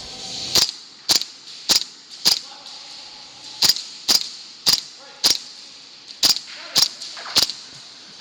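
Airsoft gun firing single shots: eleven sharp pops in three quick strings of four, four and three, about two shots a second.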